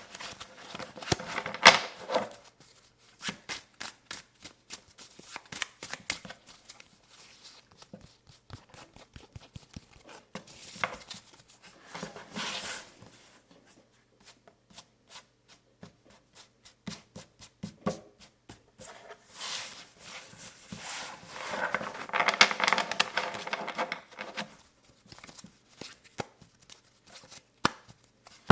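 Playing cards being handled: a run of sharp taps and clicks, with longer rustling shuffles about twelve seconds in and again from about twenty to twenty-four seconds in.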